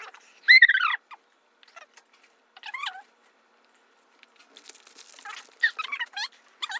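A dog whining: several short, high-pitched whimpering cries with falling pitch. The loudest comes about half a second in, and a cluster of them follows near the end.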